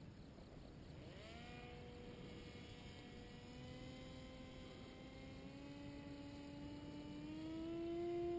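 Paramotor engine droning in flight, faint at first: its pitch swoops up about a second in, then climbs slowly and the sound grows louder toward the end.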